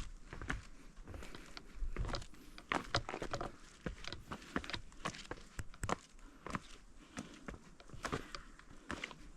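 Footsteps of people walking on a mountain trail: irregular steps and scuffs, about two a second.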